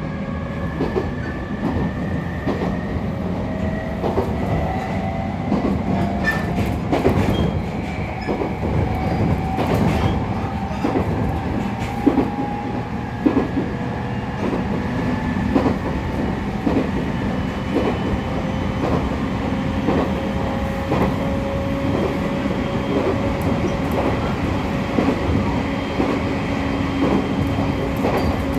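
Interior running sound of a JR East 701 series electric train, heard inside its motor car: a steady rumble with the traction motor whine rising slowly in pitch over the first half as the train gathers speed, then holding nearly steady. Wheels click over rail joints about once a second.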